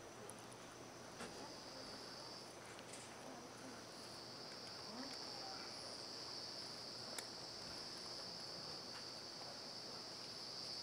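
Insects calling in a steady, high-pitched drone, faint. It breaks off briefly and comes back stronger about four seconds in.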